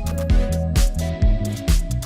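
Background music with a steady beat: electronic-style track with drums about twice a second, bass and plucked notes.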